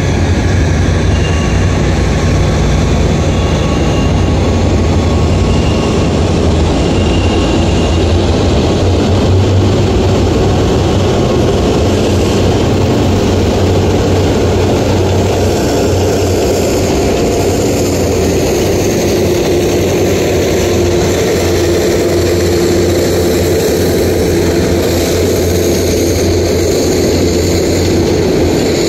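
Alsthom diesel locomotive working under power as it hauls a freight train toward the listener: a steady low drone, with its engine note growing stronger in the second half as it comes closer.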